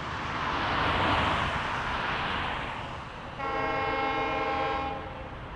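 A diesel-hauled passenger train rushes past on the rails, the noise swelling and then fading. About three and a half seconds in, its horn sounds one steady blast of about a second and a half.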